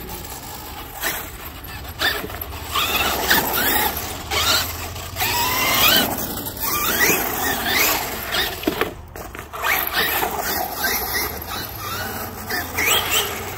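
Traxxas X-Maxx RC monster truck's brushless electric motor and drivetrain whining, the pitch climbing and dropping again and again as the throttle is punched and released, over the rush of the tyres on asphalt.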